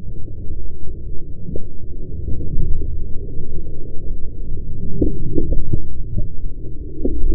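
Heavily muffled rumbling and scraping of a crashed Yamaha MT-09 sliding on its side through dirt and grass, with a few sharp knocks about a second and a half in, a cluster of them around five seconds in and more near the end.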